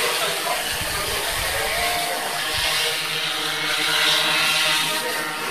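DJI Inspire 1 quadcopter hovering, its four electric motors and propellers giving a steady whir.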